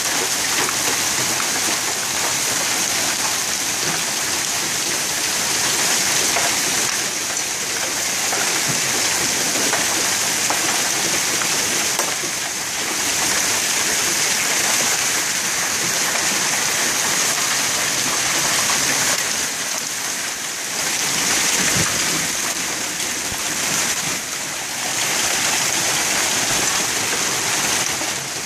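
Hail and heavy rain pelting down on the driveway, the street and a parked Jeep: a dense, steady hiss of countless small hits.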